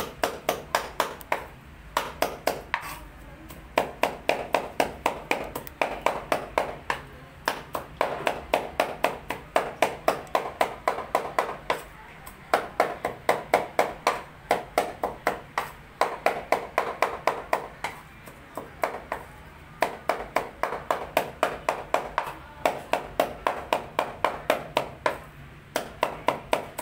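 A knife chopping rapidly on a cutting board, about five strokes a second, in runs of a couple of seconds broken by short pauses.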